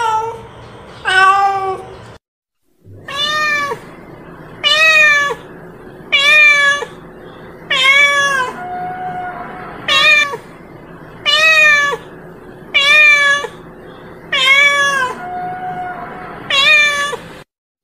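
Domestic cat meowing over and over, about eleven meows roughly a second and a half apart, each wavering in pitch. The sound breaks off briefly about two seconds in.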